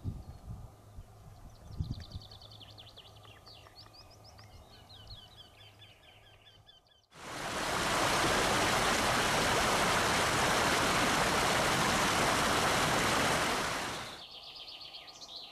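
Birds chirping in quick high series with a few low thumps. About halfway through, a loud steady rushing noise cuts in suddenly, lasts about seven seconds, fades out, and the chirping returns.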